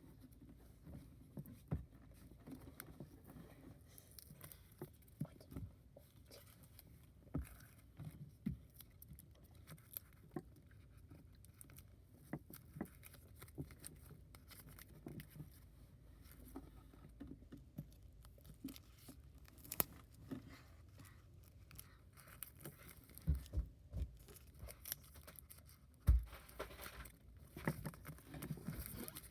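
Objects and packaging being handled: faint scattered taps, clicks and rustles, with a few louder knocks near the end.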